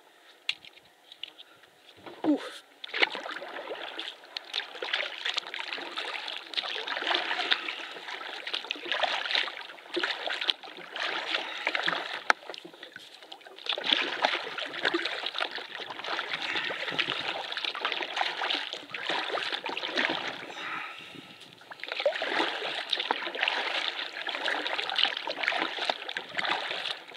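Paddle strokes from a solo canoe: water splashing and dripping off the blade and washing along the hull, starting about two seconds in and going in uneven swells.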